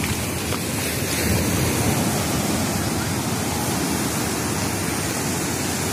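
Ocean surf washing up a sandy beach: a steady rush of breaking waves and backwash that swells slightly about a second in.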